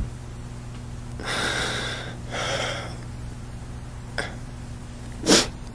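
A man weeping into a microphone: two long, shaky breaths, then a short sharp sniff near the end, over a steady low electrical hum.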